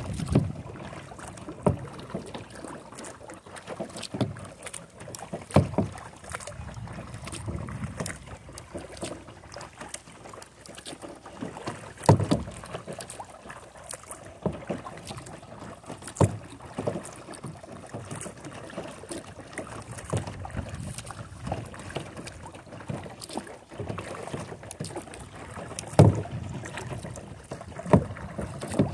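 Double-bladed kayak paddle strokes: water swishing and splashing off the blades, with a sharp knock every few seconds, irregularly spaced, and wind on the microphone.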